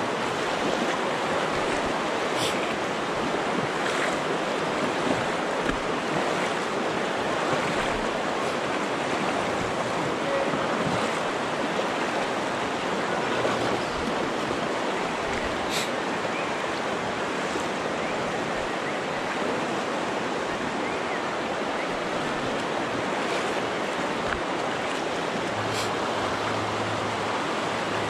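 River water flowing steadily, a continuous even rush, with a few brief clicks scattered through it.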